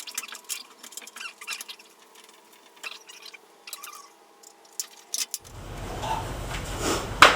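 Scattered light clicks, taps and squeaks of metal and wooden truck-bed parts being handled and fitted. About five and a half seconds in, a fuller background noise comes up, and a sharp knock sounds near the end.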